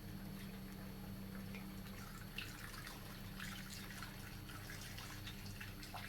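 Coolant pouring from a gallon jug into a funnel, refilling the engine's cooling system after a drain. It is a faint trickling and dripping over a steady low hum.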